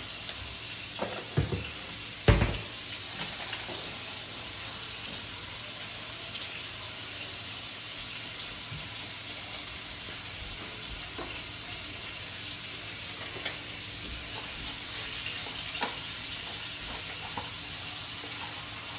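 Meat frying in a skillet on a gas burner, a steady sizzle throughout. A few sharp knocks come in the first couple of seconds, the loudest about two seconds in, with small clicks scattered later.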